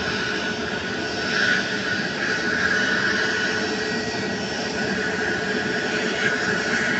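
Twin jet engines of an Airbus A320neo-family airliner running at taxi power as the plane rolls past, a steady whine over a rushing noise that swells a little as it passes.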